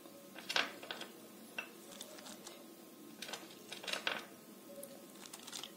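Chopped onion being added to a bowl of boiled chickpeas: a handful of faint, scattered clicks and taps of the onion and serving utensil against the bowl.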